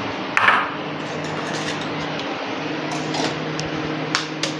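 Steady background hum with a few light clicks and knocks of kitchen handling.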